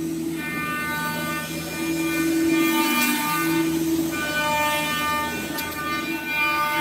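Spindles of a four-head, five-axis CNC router whining as they cut wood. Several high tones hold, drop out and come back every second or so as the cutters go into and out of the work.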